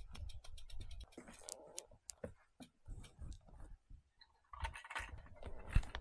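Handling noise of a loaded touring bicycle being moved about on a wooden deck: irregular clicks and knocks, a quick run of ticks in the first second and rustling near the end.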